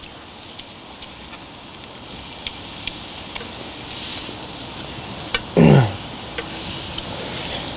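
Ribeye beef sizzling as it cooks, a steady hiss that slowly grows louder with scattered small pops. A person's short voiced murmur a little past halfway.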